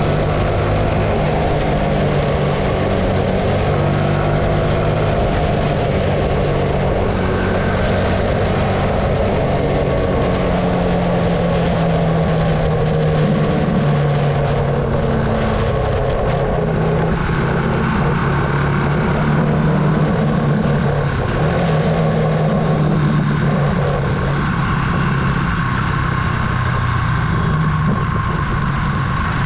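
Archive AM60 125cc single-cylinder engine running under way, its pitch stepping up and down with throttle and gear changes, over a steady rush of wind and road noise.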